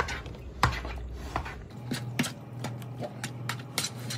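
Metal utensil stirring pasta and sauce in a plastic bowl: irregular clicks and knocks of metal against the bowl, coming faster after about two seconds.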